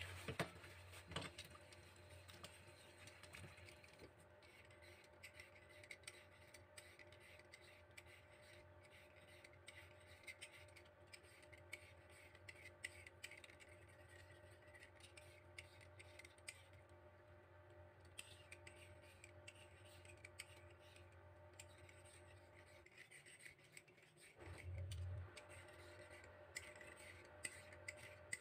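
Hand vegetable peeler scraping down a long white root vegetable in a quick run of light, repeated scratching strokes.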